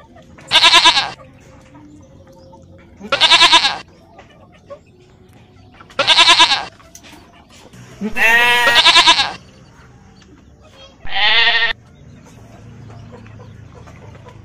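Goats bleating: five wavering bleats of well under a second each, one every two to three seconds, the fourth longer and lower-pitched than the rest.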